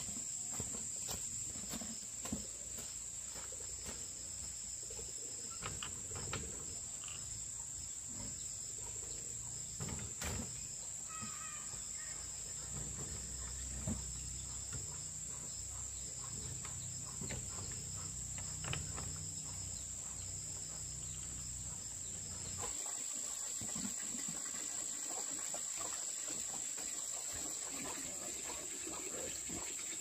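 A steady high-pitched insect chorus, with scattered short knocks and clicks over it. A low rumble underneath cuts off abruptly about three-quarters of the way through.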